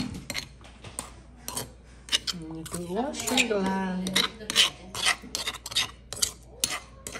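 Metal spoon scraping and clinking against the inside of a granite mortar as it stirs and scoops out coarse chili paste, in a quick run of repeated short scrapes.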